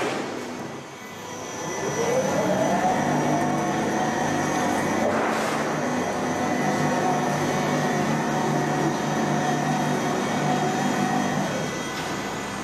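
Sheet-metal roll forming machine running: its drive whine rises in pitch as it spins up, holds steady over a low hum, and stops near the end. A single knock sounds about five seconds in.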